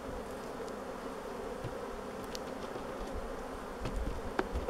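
Honeybee colony buzzing steadily around an opened hive, with a few faint knocks near the end.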